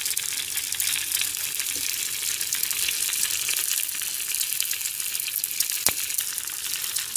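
Two eggs frying in hot oil in a pan: a steady crackling sizzle, with one sharp click about six seconds in as the turner works under them.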